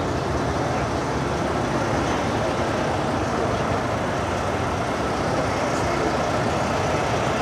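Steady, even rumbling noise of motor vehicles running, with no distinct events standing out.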